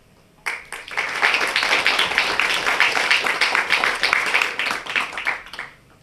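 Audience applauding, starting about half a second in and dying away near the end.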